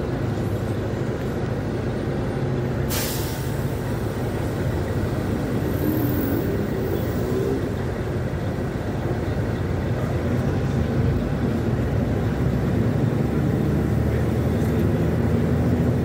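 Mercedes-Benz O500U city bus engine running steadily, heard from inside the cabin near the doors. About three seconds in comes a short, sharp hiss of air from the bus's compressed-air system.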